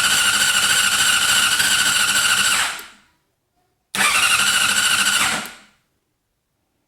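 2006 Honda CBR600RR's electric starter cranking the inline-four engine twice, first for about three seconds, then for about a second and a half. Each time it winds down without the engine catching: a crank-but-no-start, which the owner suspects is electrical or a lack of spark.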